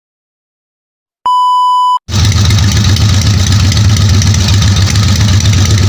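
A short electronic beep tone lasting under a second, then the Harley-Davidson WL's 750cc flathead V-twin engine running steadily, cutting in abruptly about two seconds in.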